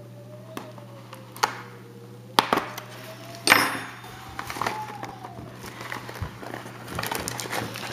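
Cardboard trading-card box being opened by hand: a few sharp cardboard snaps and clicks, a louder crackling tear with plastic wrap crinkling about three and a half seconds in, then small clicks and rustles of the foil card packs being handled near the end. A steady low hum lies underneath.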